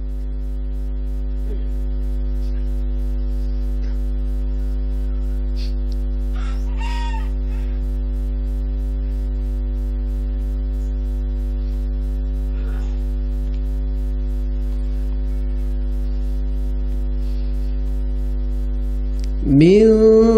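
Steady electrical mains hum through a microphone and PA system: a low hum with a stack of steady higher tones over it, unchanging for the whole stretch. Near the end a man's voice comes in with a rising sung note, resuming a chanted Quran recitation.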